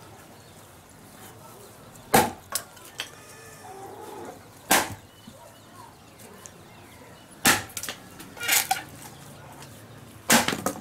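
An axe chopping into a wooden log: four heavy strokes about every two and a half to three seconds, with smaller knocks and wood cracking and splintering between them.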